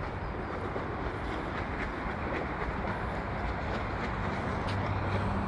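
Steady traffic roar from a freeway. It grows a little louder near the end as a low hum joins in.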